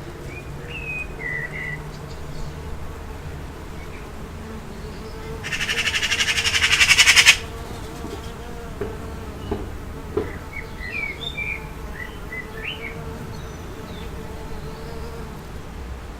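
Summer garden ambience with a steady low rumble of distant traffic. A third of the way in, a flying insect buzzes close by for about two seconds, growing louder and then cutting off abruptly. Birds chirp briefly near the start and again in the second half, with a few faint knocks in between.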